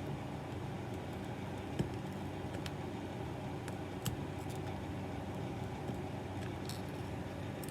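A few light plastic clicks and taps as Lego pieces are handled and pushed against a plastic display stand mount, over a steady background hum.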